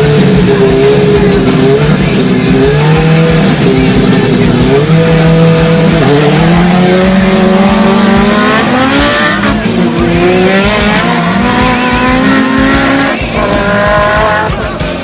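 Drag race car engines at full throttle, accelerating hard through the gears: the engine pitch climbs, drops back at each shift, and climbs again several times.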